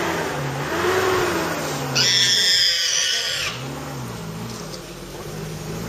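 A wild boar giving one loud, high-pitched distress squeal about a second and a half long, starting about two seconds in, as it is caught by a tiger. A vehicle engine runs underneath, its pitch rising and falling.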